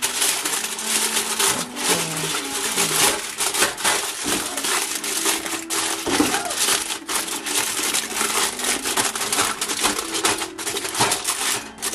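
Aluminium foil crinkling as hands press and fold it into an air fryer basket: a dense, continuous crackle.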